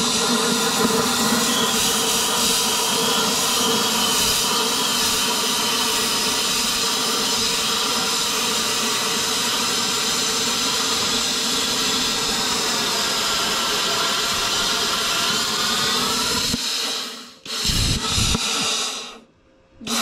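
Plasma cutter torch cutting a round hole through square steel tubing: a loud, steady hiss of the arc and air stream that cuts off about sixteen seconds in, then a short second burst of cutting a second later.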